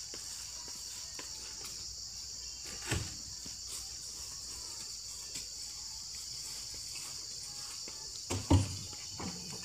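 Steady high drone of insects, with a dull thud about three seconds in and two louder thuds near the end as oil palm fruit bunches are thrown up onto the truck's load.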